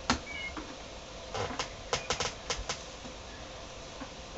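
A series of sharp clicks: one at the start, then a quick cluster of about seven between one and a half and three seconds in, with a brief faint high tone shortly after the first click.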